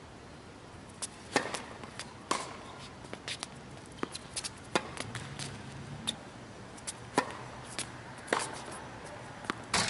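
Tennis rally on a hard court: sharp pops of racquets striking the ball and the ball bouncing, coming about once a second and sometimes in quick pairs, with players' shoes scuffing between shots.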